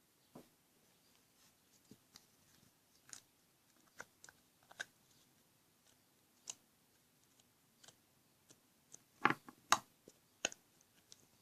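Slime being squished and poked by hand: irregular sticky clicks and pops, with a burst of louder pops about nine seconds in.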